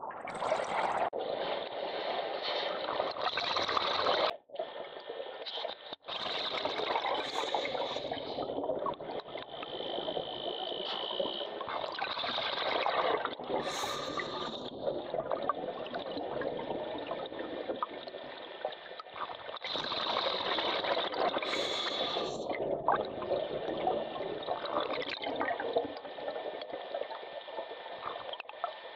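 Underwater bubbling and gurgling from a scuba diver's breathing, with a brief hiss about every seven seconds, heard through the camera's underwater housing.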